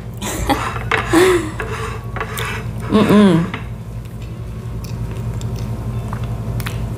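A person eating cake with a metal spoon: the spoon scraping and clicking on a ceramic plate, chewing, and two short hummed "mmm" sounds of enjoyment in the first half. A steady low hum runs underneath.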